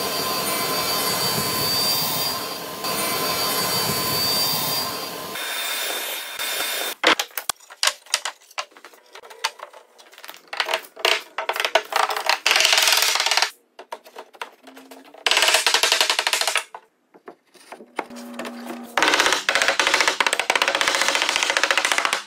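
A radial arm saw runs and cuts through pine with a steady whine for about seven seconds, then stops. After that a wooden mallet knocks notched boards together in a string of sharp taps, broken by several louder bursts of rushing noise.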